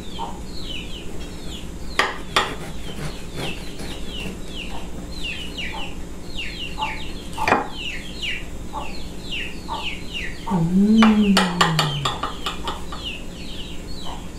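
Chickens peeping and clucking: a steady run of short, high, falling peeps, a couple each second, with a louder drawn-out call that rises and falls about ten seconds in. A few sharp clicks of a knife and dishes.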